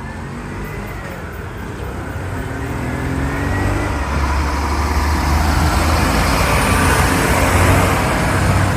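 Motor vehicle noise: a low engine hum with tyre and road noise, growing steadily louder over several seconds.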